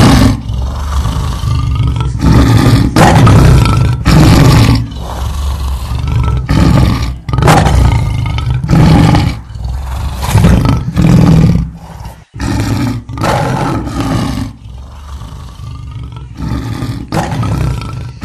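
Lion roaring and snarling in loud, repeated bursts, roughly one a second, with short gaps between.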